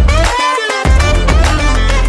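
Upbeat background music with a heavy bass line and a lead melody of bending notes; the bass drops out briefly about half a second in, then comes back.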